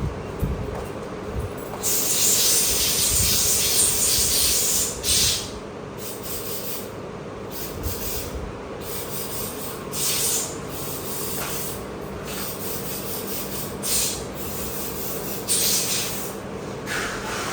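Repeated rubbing or scraping hiss in bursts, one long stretch early and several short strokes after, over a steady background hum.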